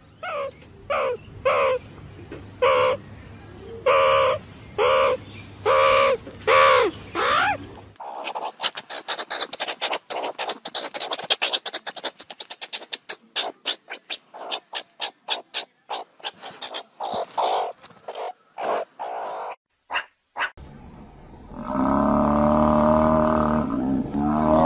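Meerkats calling: a run of short, pitched calls, then a rapid clicking chatter that thins out. Near the end a Highland cow begins a long, loud, low moo.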